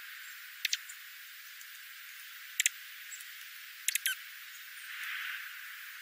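Dark-eyed juncos pecking at birdseed on a feeding tray: short sharp clicks in small clusters, a pair about half a second in, another pair in the middle and a quick run of three near two-thirds through, over a steady hiss. A soft rustle follows shortly before the end. Everything below about 1 kHz is filtered out, so the sound is thin.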